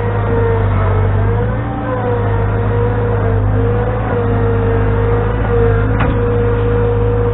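An engine running steadily under load, with a low hum and a whining tone above it that wavers slightly in pitch; a short click about six seconds in.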